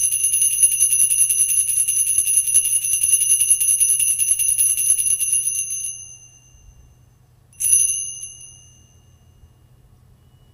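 Altar bells ringing at the elevation of the consecrated host: a bright, shimmering peal that stops about six seconds in. One more short ring follows a moment later and dies away.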